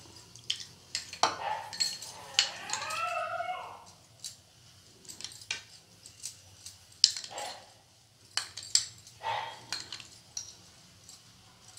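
Metal spoon clinking and scraping against a plate and bowl as a curd mixture is spooned onto bread slices. A dog gives a drawn-out whine that rises and falls in pitch from about two to four seconds in.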